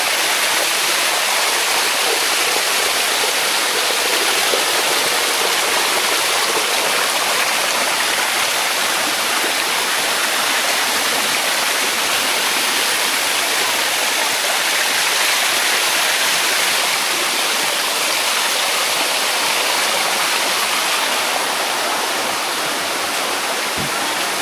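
Water of the Bua Tong limestone cascade rushing close by, a steady loud rush.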